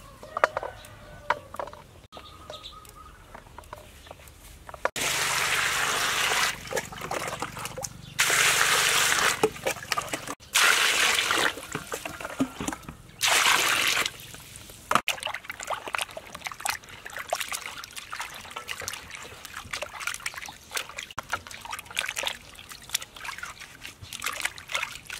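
Water poured into a stainless steel basin of vegetables in four loud pours between about five and fourteen seconds in. This is followed by lighter splashing and sloshing as hands wash the vegetables in the water.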